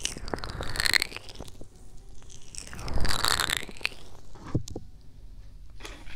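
Hands rubbing and cupping over the silicone ears of a binaural ASMR microphone: close scratchy rustling, twice, with a hollow tone that sweeps down and back up as the hands move over the ears. A couple of sharp taps follow about four and a half seconds in.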